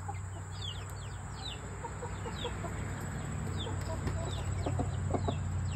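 Chickens clucking softly, with short, high chirps that slide downward in pitch, repeated throughout; a few lower clucks come toward the end.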